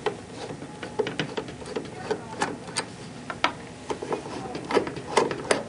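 Irregular metal clicks and ticks of a Phillips screwdriver working captive screws loose on a pump mounting bracket, a few clicks a second.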